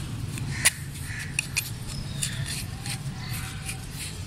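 Small hand weeding tool digging and scraping through damp potting soil in a clay pot, loosening the waterlogged soil, with a sharp click about two-thirds of a second in and a couple of lighter ones shortly after. A steady low hum runs underneath.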